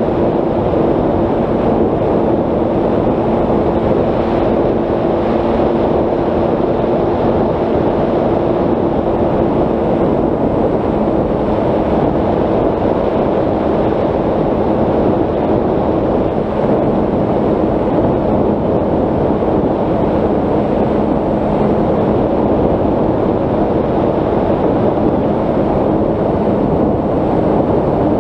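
Wind noise on the onboard microphone of a Bixler 3 RC plane in flight, over the steady hum of its Turnigy 3542 1250kv brushless motor spinning a 10x7 propeller. The motor's pitch drops slightly about ten seconds in.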